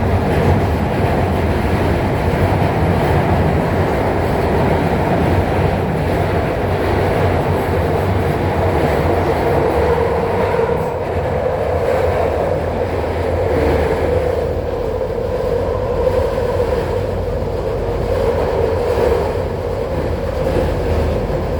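Guangzhou Metro Line 5 train running between stations, heard from inside the car: a steady rumble of wheels on rail with a drone that grows stronger about halfway through.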